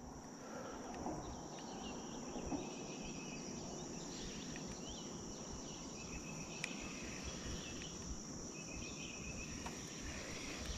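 Faint, steady drone of insects, with a shorter, lower trill that recurs about every two and a half seconds.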